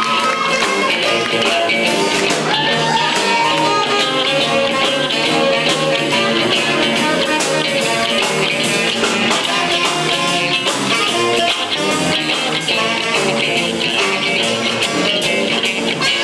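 Rock music with guitar playing at a steady loud level.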